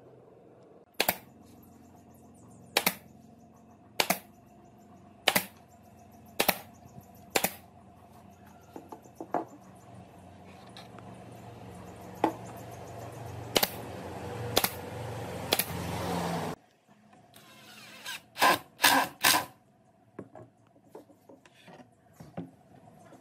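Pneumatic brad nailer firing nails into pine boards: six sharp shots about a second apart, then more scattered shots. Midway a hiss rises and stops suddenly, followed by three more quick shots.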